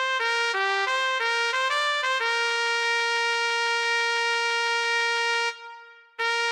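Solo flugelhorn line played back from notation software's brass samples. A quick run of short notes is followed, about two seconds in, by one long held note that fades away shortly before the next note enters near the end.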